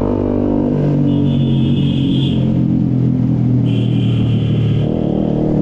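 Yamaha R15 single-cylinder motorcycle engine running steadily under way, its pitch easing down at the start and then holding. Two high, steady tones, each over a second long, sound one after the other over it.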